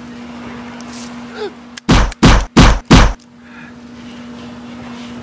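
Four loud gunshot bangs in quick succession, about two to three seconds in, over a steady low hum.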